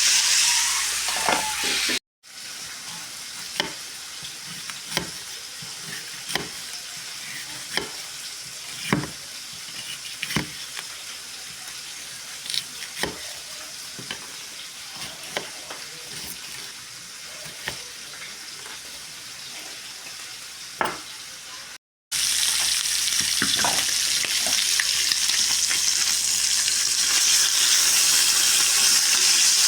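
Food frying and sizzling in a pan, with a steady hiss. In a quieter stretch between two cuts, there is a slow series of light knocks, about one every second and a half.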